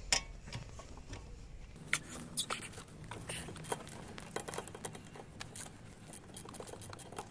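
Scattered light clicks and metallic taps of a wrench being fitted against the bolts of a Ford Focus MK1's rear brake caliper, with a few sharper knocks near the start and about two seconds in.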